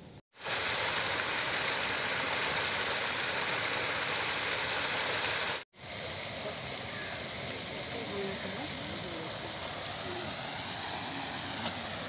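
A steady rushing hiss that cuts out abruptly twice, just after the start and about halfway through, coming back a little quieter, with faint voices behind it.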